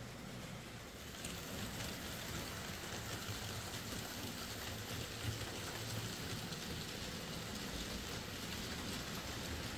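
OO gauge model goods train, hauled by a Bachmann Ivatt 2MT tank locomotive, running along the track. It makes a steady rolling noise that gets louder about a second in as the wagons come past.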